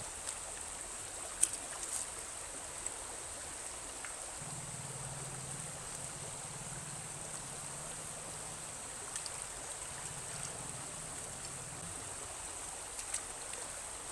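Water running steadily, with a few sharp clicks and knocks, the loudest about a second and a half in. A faint low hum comes in at about four seconds and fades out near twelve.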